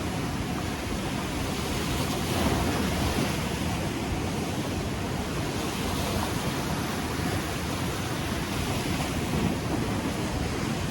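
Ocean surf washing on the shore in a steady rush, swelling slightly as a wave breaks about two seconds in, with wind buffeting the microphone.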